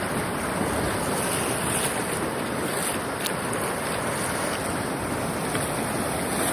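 Steady wash of sea surf breaking on a beach, with wind on the microphone.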